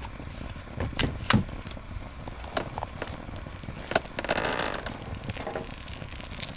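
Campfire crackling, with a few sharp pops and a short rustling noise about four seconds in.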